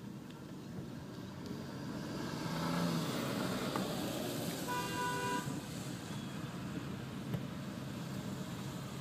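Road traffic heard from inside a car, with a car horn sounding once for under a second about five seconds in.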